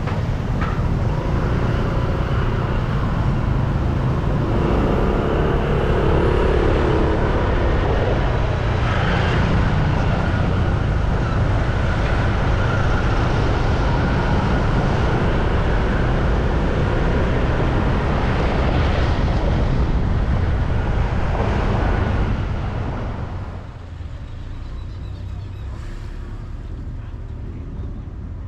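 Road traffic going by: a steady, loud rumble of passing vehicles that drops noticeably quieter near the end.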